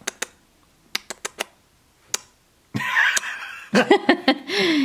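Light clicks of a small plastic toy figure being handled. Near the end comes a wordless, drawn-out vocal sound that falls in pitch, and it is the loudest thing here.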